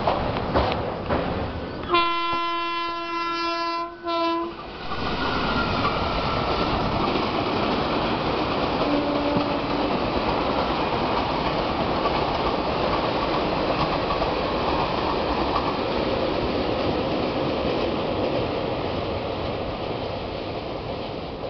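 Passenger train running at speed, heard from an open coach door: wheels clattering over rail joints as it comes off a steel truss bridge. About two seconds in a locomotive horn sounds one steady blast for about two and a half seconds, then steady wheel-on-rail rolling noise carries on, with a brief faint horn note near the middle.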